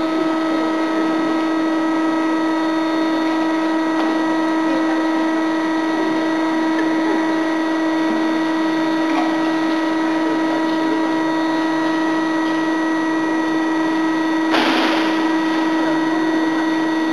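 Vacuum emulsifying mixer's drive motor running as its lid lowers onto the mixing tank: a steady hum with a constant whine and several fainter steady tones above it. A short burst of hiss comes near the end.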